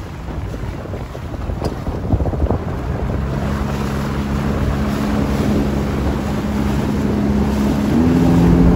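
Wind buffeting the microphone over choppy water, with a motorboat engine's steady hum coming in about three seconds in and stepping up in pitch near the end as it is throttled up.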